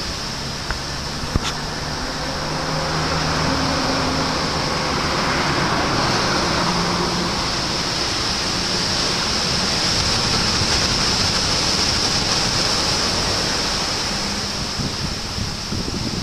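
Heavy typhoon surf: a continuous roar of breaking waves that swells and eases over several seconds.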